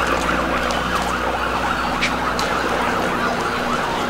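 Several emergency-vehicle sirens wailing at once, their rising and falling pitches overlapping, over a steady low rumble of street noise.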